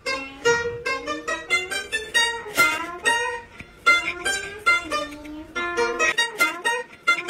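A pipa (Chinese lute) playing a quick melody of plucked notes, several a second.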